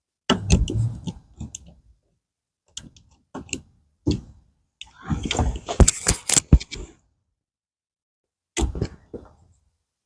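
A blade cutting and scraping through tough vinyl-coated polyester pet screen as the excess is trimmed off a screen frame, in several short stretches of scraping and sharp clicks, the busiest in the middle. The heavy-duty screen resists the cut, making for a hard, slow trim.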